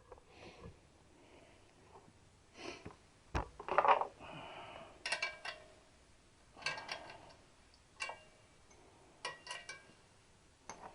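Hand tools and metal exhaust parts clinking and knocking against each other: a series of short, ringing metallic clinks, with a sharper knock about three and a half seconds in.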